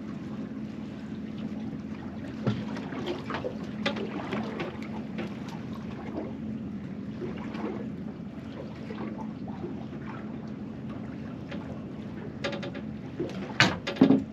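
Steady low hum of a small fishing boat's engine, with scattered clicks and knocks of fishing tackle as a foul-hooked fish is reeled in. A cluster of louder sharp knocks comes near the end.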